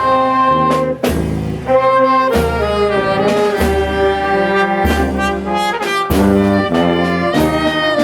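Brass band playing a slow march, trumpets and trombones over a low bass note that lands on each beat, a little over a second apart.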